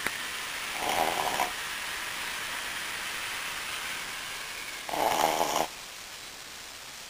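Brussels Griffon dog snoring in his sleep: two short, rattling snores, one about a second in and another about five seconds in.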